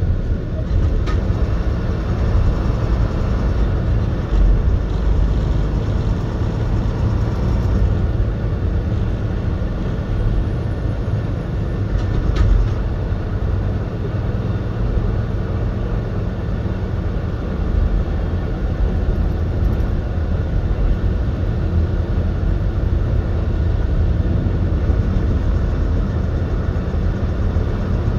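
Steady low rumble of a heavy truck's engine and road noise, heard from inside the cab while cruising at highway speed.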